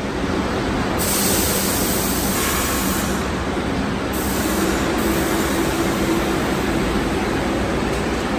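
New York City subway 6 train at a station platform: a steady rumble, with a loud hiss of air starting about a second in, easing off around three seconds and returning at about five seconds.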